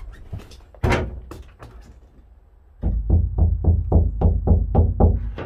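Hand rapidly tapping the steel rear side panel of a VW T25 van, where a foil-faced sound-deadening pad has been stuck, about five deep knocks a second starting about three seconds in. A single sharp knock comes about a second in. The tapping tests how well the pad has deadened the panel, which the owner judges may need a bit more.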